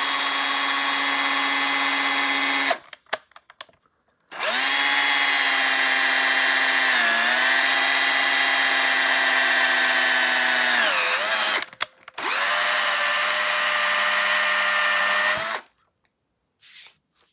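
Electric drill with a 3/16-inch plastic-cutting bit boring a hole through an acrylic sheet. It runs in three spells: about three seconds, a pause, then about seven seconds with its pitch sagging briefly twice as the bit bites, then a lower-pitched run of about three seconds before it stops.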